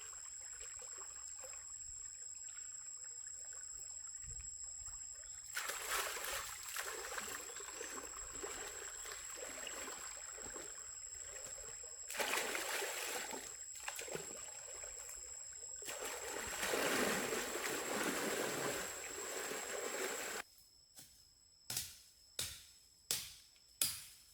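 Water trickling and sloshing in uneven swells, with a thin steady high whine behind it. Near the end the water stops abruptly and four sharp knocks follow, each dying away quickly.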